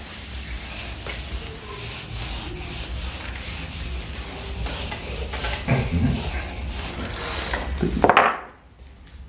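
Marker writing and a duster rubbing back and forth over a whiteboard, wiping off the writing, with a few louder strokes; the rubbing stops about a second before the end.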